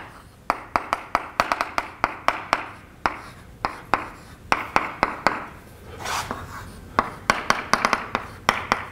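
Chalk writing on a blackboard: irregular clusters of sharp taps as each symbol is struck, with a longer scratchy stroke about six seconds in.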